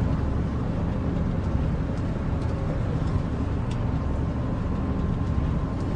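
A loud, steady low rumble that starts suddenly just before and carries on without a break, with a faint thin tone joining about four seconds in.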